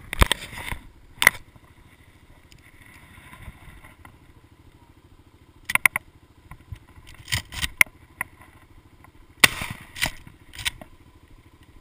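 Honda ATV engine idling steadily, with several short bursts of clatter and knocks close to the microphone.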